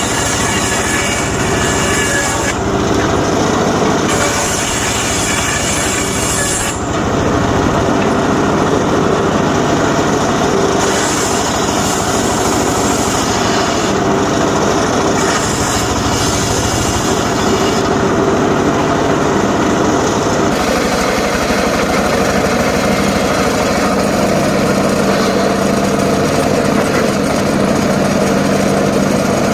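Homemade engine-driven circular saw cutting johar wood logs. For about the first twenty seconds the blade's bite into the wood comes and goes every few seconds, and after that the saw runs on steadily without cutting.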